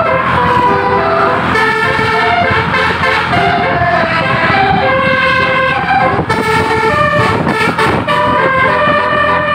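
Basuri musical air horn playing a tune, a run of loud held notes that step in pitch every half second or so, over the low running of an engine.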